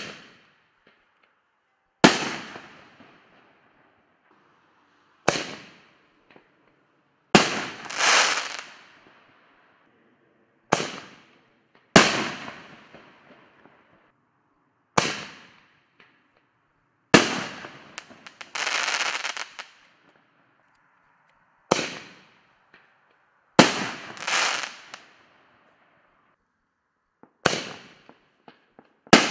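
5-inch artillery-shell fireworks going off in a steady succession: a series of sharp bangs a couple of seconds apart, each trailing off in echo. Three of the bangs, at about 8, 19 and 24 seconds, are followed by a longer noisy stretch of about a second.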